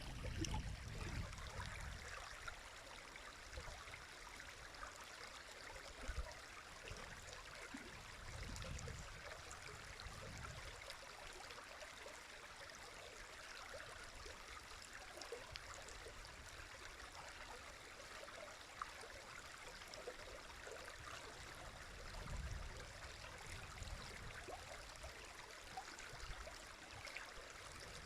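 A river flowing steadily: a faint, even rush of water, with a few low rumbles now and then.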